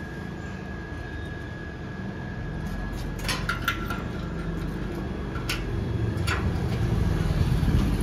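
Sharp metallic clicks as a key is turned in the cylinder of an electronic gate lock: a quick pair about three seconds in, then single clicks near five and a half and six seconds. A low steady rumble underneath grows louder towards the end.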